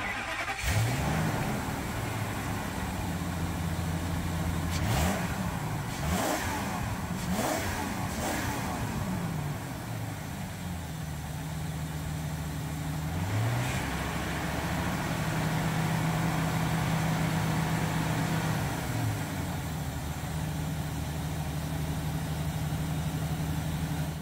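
Ford 6.8-litre gasoline V10 idling, revved in four quick blips about five to eight seconds in and once more past the halfway mark.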